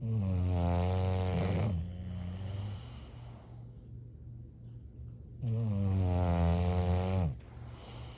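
English bulldog snoring deeply: two long snores about five seconds apart, each under two seconds long, with the pitch sagging at the end of each. The first trails off into a softer breath.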